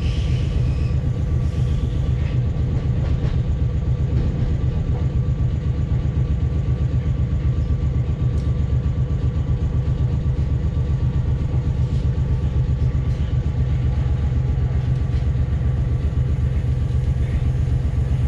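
Steady rumble of a moving electric commuter train heard from inside the carriage, with a faint steady hum above it and a few light clicks.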